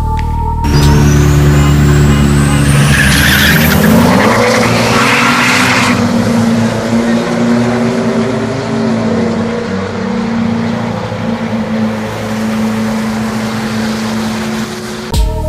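Two pickup trucks, a Ford F-150 EcoBoost and a Duramax diesel, accelerating hard down a quarter-mile drag strip. A high whine rises over the first few seconds, a loud rush of noise comes about three to six seconds in, and then the engines run on steadily as the trucks pull away.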